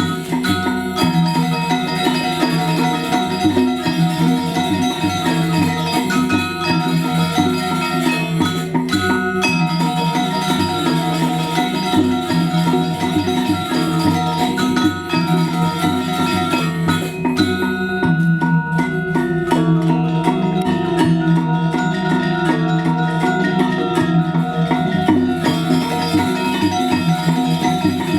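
Balinese gamelan playing dance music: bronze metallophones struck in fast, dense patterns over sustained ringing tones.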